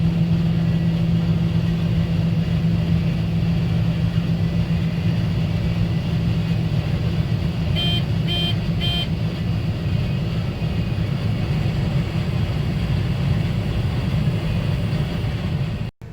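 Combine harvester running steadily under harvesting load, a constant low hum, with three short beeps in quick succession about halfway through.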